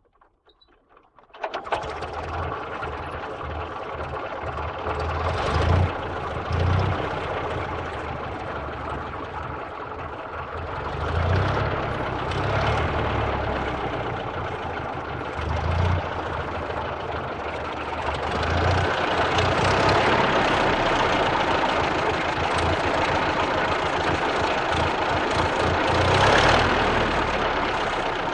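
Vintage car engine starting suddenly about a second and a half in, then idling with an uneven, pulsing beat. Its level swells several times and runs louder in the second half.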